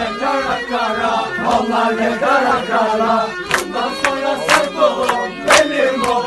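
A crowd of voices, mostly men, singing a folk dance song together. From about halfway through, hand claps join in time to the beat.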